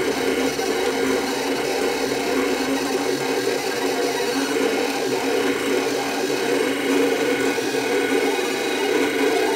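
Vinyl cutting plotter contour-cutting printed transfer paper: its motors run steadily as the knife head and rollers move the sheet along the cut path.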